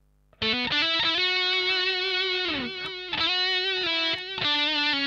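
Electric guitar played through a Mooer GE100 multi-effects unit on a high-gain preset. Sustained distorted lead notes start about half a second in. One held note slides down in pitch about halfway through, and two more phrases follow after short breaks.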